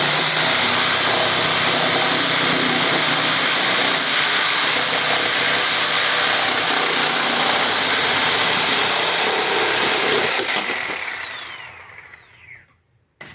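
Electric saw cutting 11-inch solid-core PVC drain pipe: the motor runs at full speed with a steady high whine for about ten seconds, then is switched off and winds down with a falling whine.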